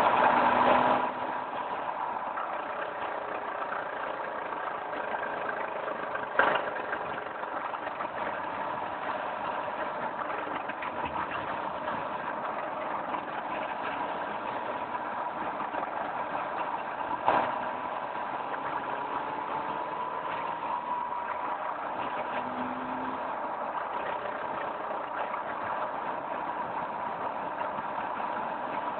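Volkswagen Mk4 Golf running: a steady engine hum with a whine in it. There is a louder burst in the first second and two sharp knocks, about six and about seventeen seconds in.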